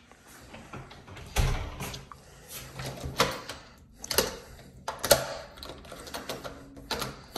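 Irregular knocks, clicks and clatters, a dozen or so spread unevenly, the sharpest a little past five seconds in.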